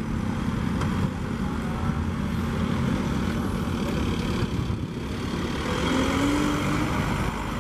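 KCIC400AF high-speed inspection train, an electric CR400AF-type trainset, running past with a steady low rumble. A faint rising whine comes in about six seconds in.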